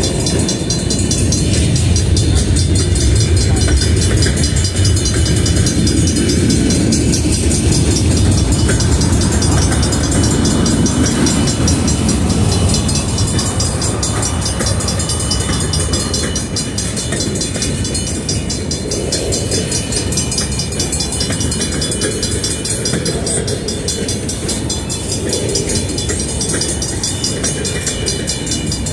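Union Pacific freight train rolling past, a steady heavy rumble of locomotive and cars on the rails, loudest in the first half and easing a little past the middle.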